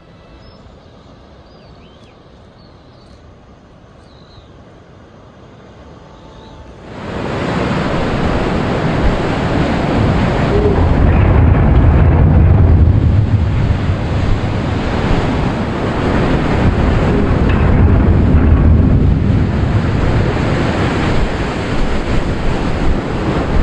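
Rushing water with wind buffeting the microphone. It starts suddenly about seven seconds in, after a quiet stretch, and then runs loud and steady with a gusting low rumble.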